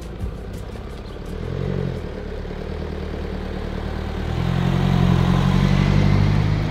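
Mercedes estate car driving past towing a small box trailer: engine hum and tyre noise build as it comes closer, loudest about five seconds in.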